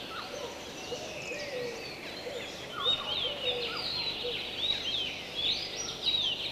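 Several forest birds calling over faint ambient hiss: repeated short, sweeping whistled notes, some low and some high, the high ones louder from about three seconds in.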